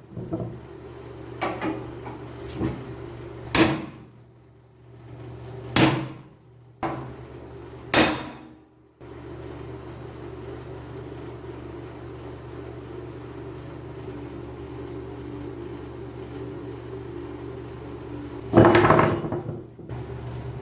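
Sharp knocks and clanks of tools being handled in a workshop, about seven in the first nine seconds. Then a steady machine hum runs, with one louder knock near the end.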